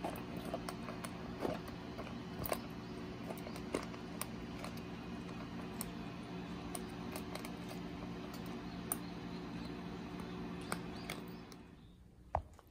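Tabby kitten eating dry kibble from a stainless steel bowl: scattered crisp crunches and clicks over a steady low hum. The hum drops away near the end, and a single sharp click follows.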